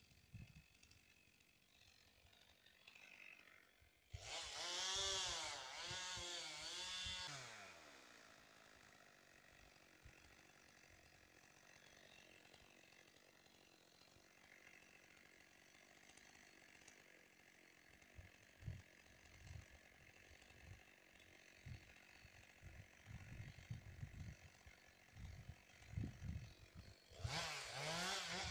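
Chainsaw revving, its engine pitch rising and falling, in a loud spell of about three seconds starting some four seconds in and again near the end. In between, a faint steady engine hum, with scattered low knocks in the last third.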